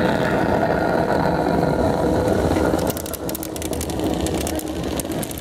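A dense rushing outdoor noise, then from about three seconds in, rapid runs of sharp clicks: airsoft guns firing during a speedball match.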